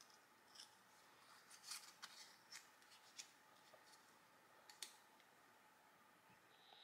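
Faint handling of small painted paper circles: soft rustles and light taps and clicks as the pieces are separated and set down on a board, a few sharper ticks among them.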